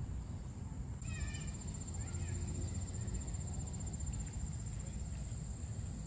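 Insects trilling in a steady high-pitched drone that grows louder about a second in, over a low steady rumble.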